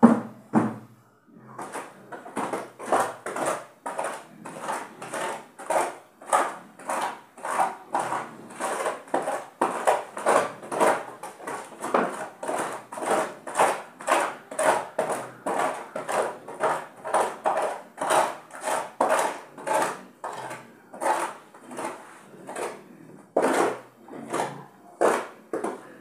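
A pig close by making short, rhythmic sounds, about two to three a second, with a couple of louder ones near the end.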